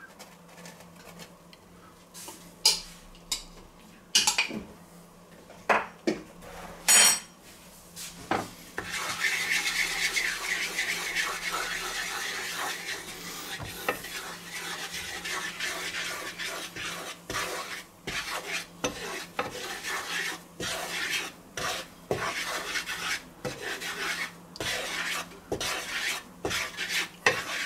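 A few knocks and clinks of a spoon against a frying pan, one loud ringing clink about seven seconds in. Then a wooden spatula stirs and scrapes a flour-and-butter roux across the pan with a steady sizzle.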